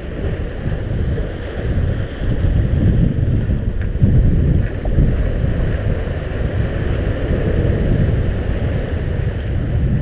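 Wind buffeting the microphone over waves surging and breaking against the rocks: a steady, loud, churning rumble.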